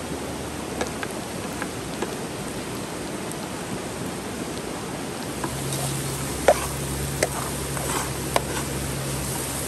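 Steady rush of a stream, with scattered clinks and scrapes of a metal slotted ladle against a wooden board and a steel pot as mushrooms are pushed into minced meat and stirred. The sharpest knock comes about two-thirds of the way through.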